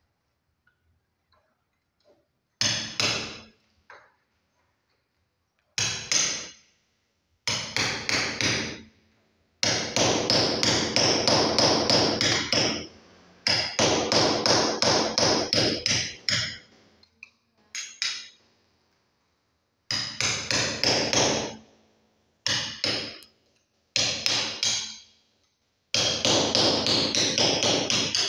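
Hammer driving a chisel into a masonry wall to make room for electrical wiring. The strikes come in quick runs of several blows a second, broken by short pauses.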